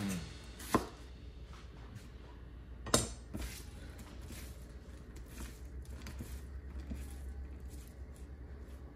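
A kitchen knife cutting through an onion and tapping a wooden cutting board, then a knife set down on the board with a sharp clack about three seconds in, followed by light, soft ticks as the onion slices are pulled apart by hand.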